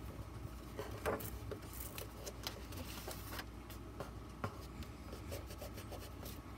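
Hands pressing and rubbing folded cardstock flat on a tabletop: faint paper rustling with a few light taps, the sharpest about a second in and again around four and a half seconds in.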